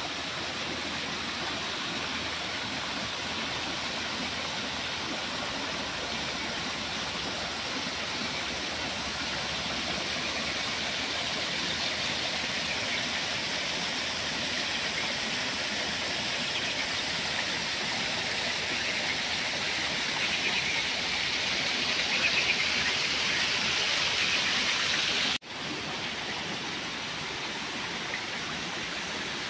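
Small garden waterfall cascading over rocks into a pond: a steady rush of falling and splashing water. It grows a little louder, breaks off sharply about 25 seconds in, and comes back somewhat quieter.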